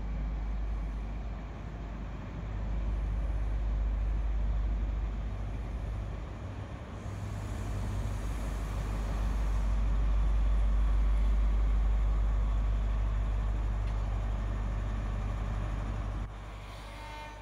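Deep, steady diesel engine rumble from a train at the station, swelling and easing in level, with a sudden drop near the end.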